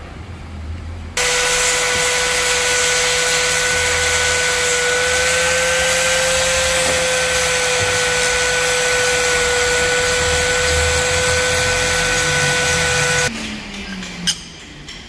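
Handheld angle grinder starts suddenly about a second in and runs for about twelve seconds with a steady whine and a harsh grinding hiss, grinding a small metal part, then cuts off. A single sharp knock near the end.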